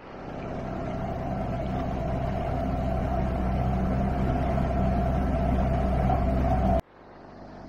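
Outboard motor of a MacGregor 26X sailboat running steadily under way, a constant engine hum. Near the end it drops suddenly to a quieter mix of engine and wind.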